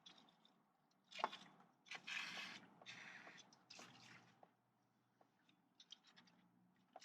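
Aerosol can of brake parts cleaner sputtering in a few short, weak hissing spurts after a click: the can is running out and only dribbles instead of spraying.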